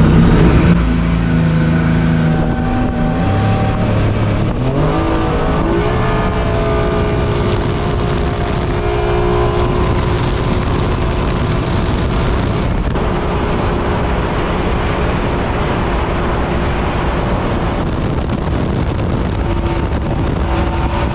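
Jet boat's jet-ski engine under way, with the rush of water. The engine rises in pitch between about four and six seconds in as it speeds up, then runs steadily at the higher speed.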